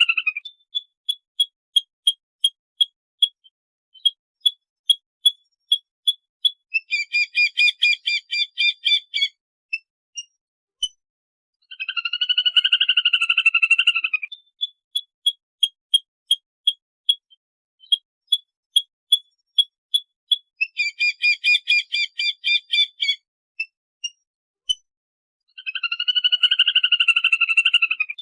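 Lesser whistling duck flock call played as a looped lure recording. Each cycle is a long wavering whistle of about two seconds, then a run of short sharp pips about three a second, then a couple of seconds of dense chattering whistles. The whole sequence repeats about every 14 seconds.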